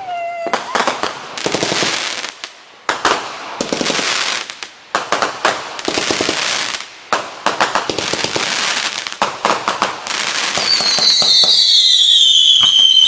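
New Year fireworks and firecrackers going off in dense volleys of sharp cracks and rapid crackling. Near the end a loud, high whistle slides down in pitch and becomes the loudest sound.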